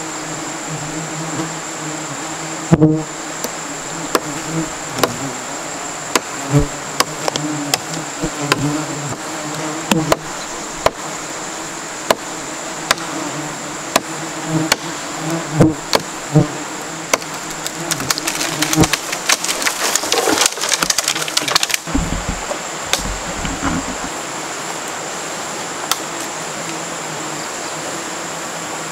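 A swarm of stinging insects buzzing around their hanging nest, a steady low hum, with scattered sharp clicks and knocks and a dense run of crackling clicks about two-thirds of the way in.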